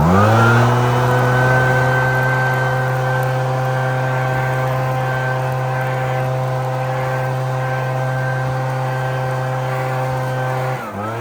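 Gas leaf blower engine revved up to full throttle, then held there with a steady high whine. Near the end it drops briefly and revs straight back up.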